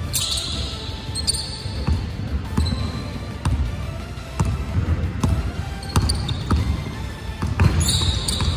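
Basketball being dribbled on a hardwood gym floor, a thud about once a second.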